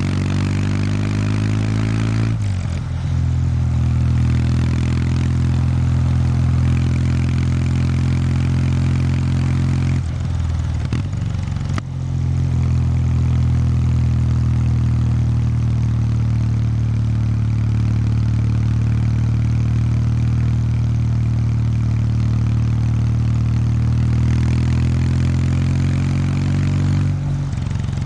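Kawasaki W800 Street's air-cooled parallel-twin engine through its stock exhaust, heard while the bike is ridden. It rises in pitch for the first couple of seconds and drops with a gear change. There is a brief lull with throttle off about ten seconds in, then it holds a steady pull with another change near the end.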